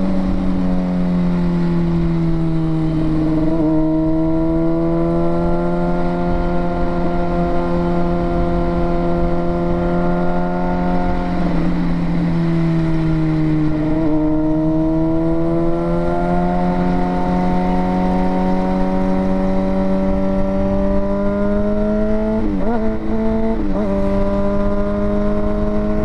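Sportbike engine under way at steady cruising revs. Its pitch sags and climbs back a couple of times as the bike eases off and picks up again, and two brief breaks in the note near the end mark gear changes. Wind rumbles on the microphone throughout.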